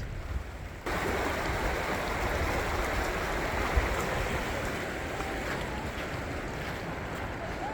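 Rushing water of a mountain river: a steady, even rush that comes in suddenly about a second in.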